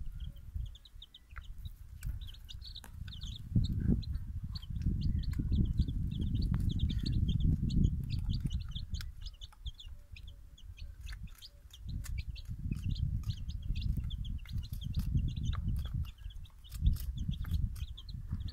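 A brood of young chicks peeping continually, many short high chirps overlapping, with a low rumble underneath that comes and goes.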